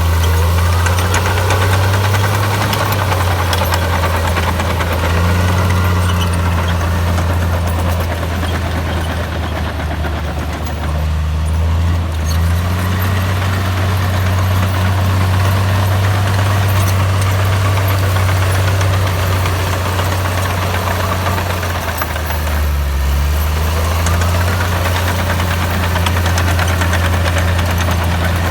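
Komatsu bulldozer's diesel engine running steadily with a low drone, its pitch shifting slightly a few times as the load changes.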